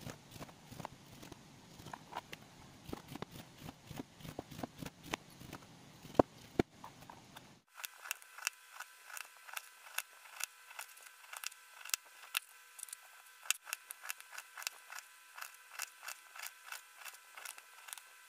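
Kitchen knife slicing a lemon on a plastic cutting board: a steady run of light taps, several a second, as the blade goes through the fruit and meets the board. About eight seconds in, the low background noise cuts out suddenly and a faint steady hum comes in.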